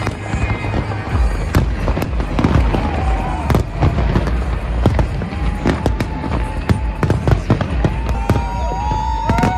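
A large fireworks display: many aerial shells going off in dense, rapid bangs and crackles. Music plays underneath, and whistle-like tones slide up and down in the second half.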